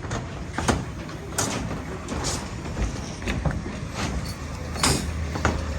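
Irregular metallic knocks and clanks over a steady low machinery rumble, typical of construction-site work.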